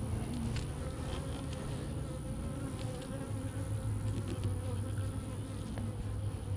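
Swarm of honeybees buzzing in a steady, wavering drone around an open hive, with a few faint clicks.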